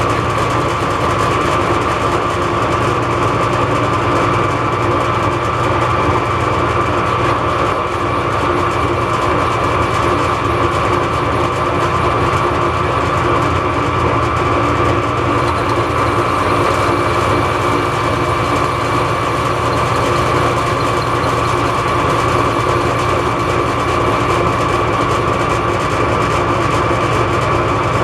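Metal lathe running steadily with a constant whine while squaring up (facing) the end of a workpiece.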